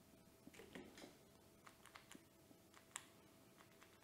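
A handful of faint, irregularly spaced clicks from a handlebar button on a KuKirin G2 Pro electric scooter being pressed repeatedly to open its settings menu; the clearest click comes about three seconds in.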